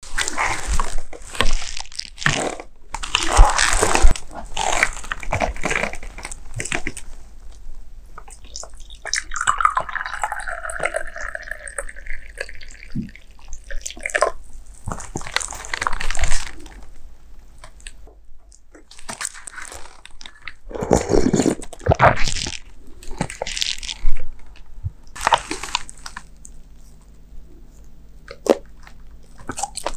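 Liquid poured in a thin stream from a small pot into a porcelain cup for about five seconds around the middle. Before and after it come loud close-miked clicks, taps and handling noises.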